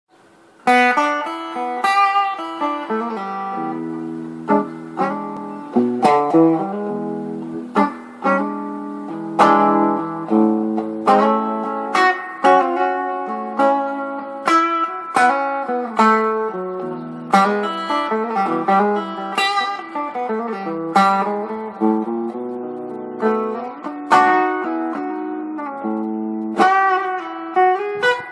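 Electric guitar played with a vintage-style tone, mixing picked chords and single-note lines. Sharp picked attacks come roughly once a second, each ringing on and fading, and the playing begins just under a second in.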